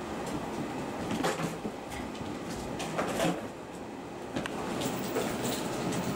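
Bengal kittens playing on a hard tile floor: scattered knocks, clicks and scuffles of paws and toys over a steady background noise.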